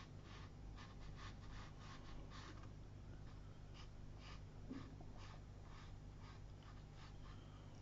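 A wet watercolour brush stroking and flicking across textured paper while laying in thin cloud streaks: a run of faint, short scratchy strokes, a few a second, over a low steady hum.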